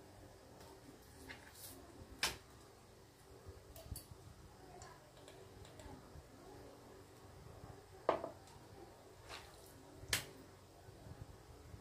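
A few soft taps and clicks of hands taking seasoning from a small metal cup and sprinkling and handling chicken breasts on a plastic cutting board, over a low steady hum. The clearest clicks come about two seconds in and twice near the end.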